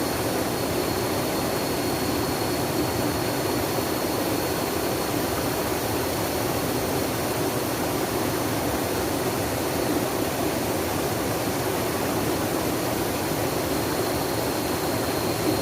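Flowing water rushing steadily and evenly, with a faint steady high tone running under it.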